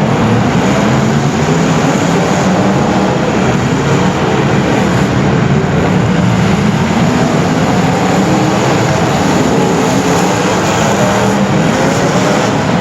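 Racing engines running continuously at high revs during a heat race, a dense steady noise with no let-up.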